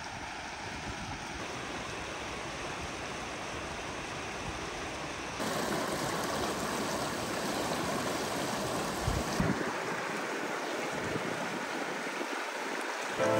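Steady rushing water from a creek or waterfall, an even hiss with no tones. It gets louder abruptly about five seconds in.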